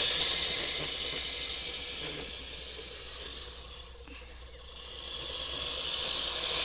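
Manual push reel mower's spinning blades whirring and clattering through grass, fading as it is pushed away and growing louder again as it comes back close.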